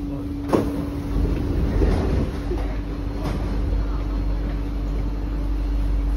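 Passenger doors of an SMRT C151A metro train opening at a station stop: a sharp clack about half a second in, then a second or so of sliding rumble as the doors part, over the train's steady hum.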